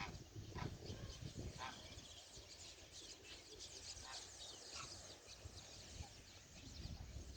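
A flock of birds calling faintly: many short, high chirps scattered through.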